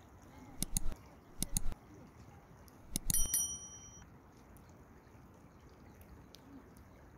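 Three short bursts of sharp metallic clinks about a second apart, the last ringing on briefly like a small bell, over the steady rush of a mountain stream.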